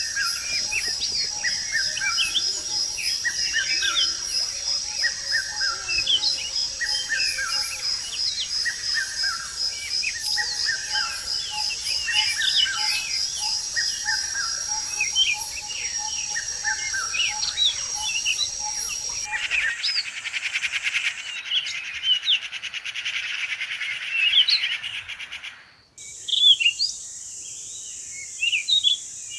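Tropical forest chorus of many birds chirping and calling, with repeated falling notes, over a steady high pulsing insect trill. The trill stops abruptly about two-thirds of the way through, and the background changes suddenly again near the end.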